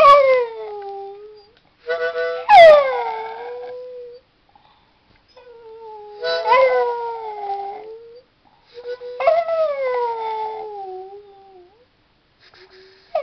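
A small terrier howling along to music: four long howls, each swelling up and then sliding down in pitch, the loudest about two and a half seconds in. A short steady chord from the instrument being played sounds just before that loudest howl.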